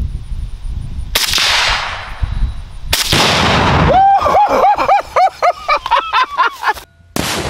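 Two sharp rifle shots from a ZPAP AK-pattern rifle firing M855 5.56 ball, about a second in and about two seconds later; the second sets off the Tannerite, and a heavy blast rolls on and fades after it. Then a man yells and whoops in rapid repeated cries, and just before the end another loud blast cuts in abruptly.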